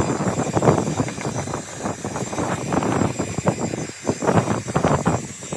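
Handheld electric heat gun running, a steady rushing blow of air with a thin high whine, rising and falling in level as it is swept back and forth to warm the cold glass.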